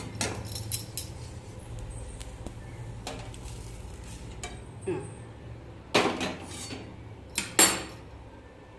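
Metal spatula scraping and clinking in a kadai as fried chillies and cumin are scooped out of it, with two louder clanks about six and seven and a half seconds in.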